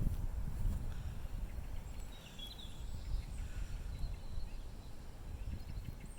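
Low, rumbling background noise with a few faint, short bird chirps about two to three seconds in.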